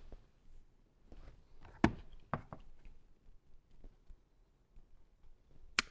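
Scattered light clicks and knocks from hand tools and speaker wire being handled while the wire is prepped for stripping, with the sharpest click near the end.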